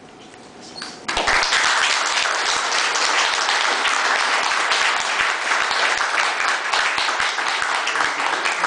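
Audience applauding, breaking out suddenly about a second in and going on steadily.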